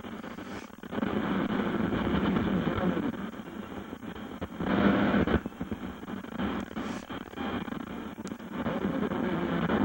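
1968 Mercury Monterey AM radio tuned to a weak AM station: mostly static and hiss with a faint talk broadcast underneath, the level swelling and dipping. The noisy reception comes from a poor antenna.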